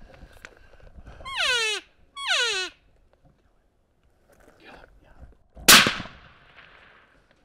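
Two short elk cow mews, each a nasal call sliding steeply down in pitch, then a few seconds later a single loud rifle shot with a short echoing tail.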